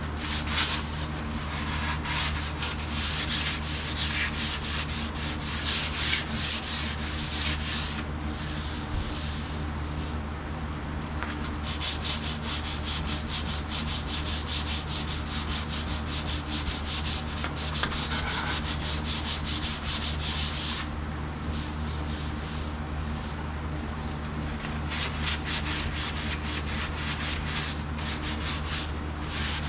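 Sandpaper rubbed by hand over a painted vehicle body panel in quick back-and-forth strokes, with a few short pauses, to level the black paint and show up flaws such as paint runs. A steady low hum runs underneath.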